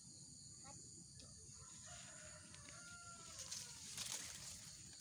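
A rooster crowing faintly, one drawn-out crow about two seconds in, over a steady high drone of insects.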